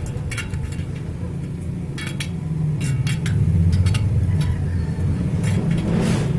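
Light metallic clicks and clinks, several scattered through, from a spoke wrench working the spoke nipples of a bicycle wheel being trued, over a steady low hum.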